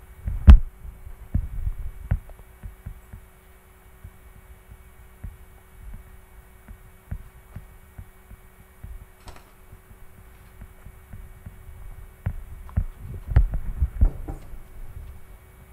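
Scattered low thumps and knocks of handling noise picked up by the microphone, over a steady electrical hum. The loudest thumps come about half a second in and again in a cluster near the end.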